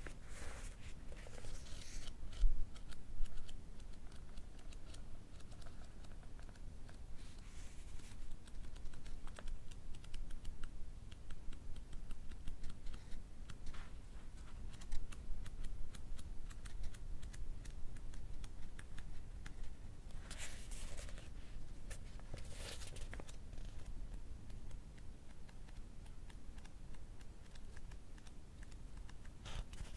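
Pages of a paperback book being riffled and flicked through, a dense run of small paper ticks and flicks, with a few short, louder page swishes.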